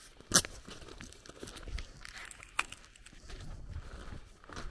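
Footsteps of a person walking on a dirt path, soft low thuds mixed with a few sharp clicks, the loudest about a third of a second in.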